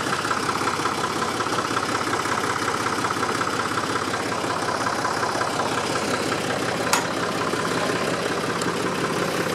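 Engine of a 1976 Linde forklift running steadily while it pushes a potato tipping hopper into place. A single sharp knock comes about seven seconds in.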